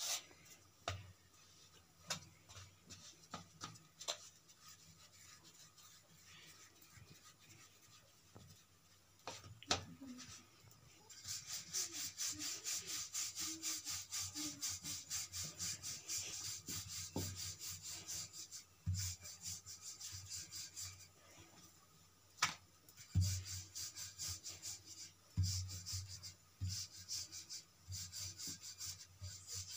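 Wooden rolling pin rolling out a potato-stuffed paratha on a round board: quick, even back-and-forth rubbing strokes in a long run from about a third of the way in, and a shorter run near the end. Before that, only soft handling of the dough, with a few knocks of the pin against the board in between.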